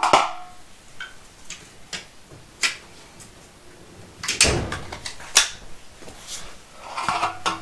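Handling sounds of a sheet-metal light-fixture cover: scattered clicks and knocks, with a louder thump about four and a half seconds in.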